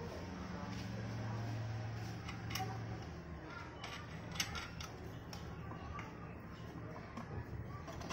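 A few light metallic clicks and taps from a scooter's CVT clutch assembly being handled and turned by hand, over a low steady hum during the first few seconds.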